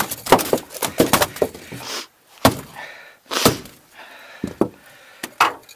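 A freshly landed Pacific halibut thrashing on a boat deck: a rapid run of loud slaps and thumps, a brief lull about two seconds in, then two heavy knocks and a few scattered ones.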